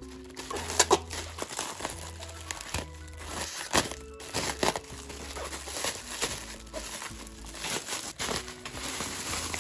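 Clear plastic packaging crinkling and rustling as a parcel's plastic bag and wrap are handled and pulled open, with irregular sharp crackles. Soft background music plays underneath.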